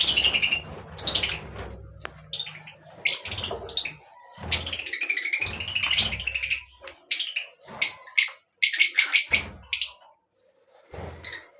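Birds chirping and calling in quick, overlapping bursts, with a fast run of short repeated notes about nine seconds in.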